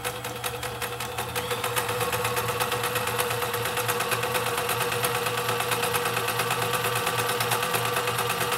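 Vintage 1980s Kenmore 158.1345 sewing machine stitching a wide zigzag: motor humming under a rapid, even ticking from the needle mechanism. It picks up speed over the first couple of seconds, then runs at a steady pace.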